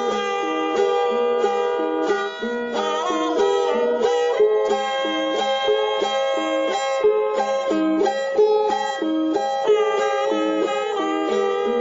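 Instrumental music: a plucked-string melody with quick note changes over a steady held drone note, with a brief pitch bend about three seconds in.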